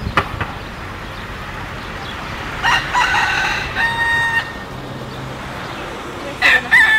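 A rooster crowing: one full cock-a-doodle-doo about three seconds in, ending on a long held note, and a second crow starting near the end.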